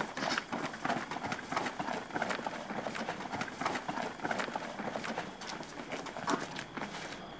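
Children's running footsteps on stone alley paving: a quick, irregular patter of shoe strikes that eases slightly near the end.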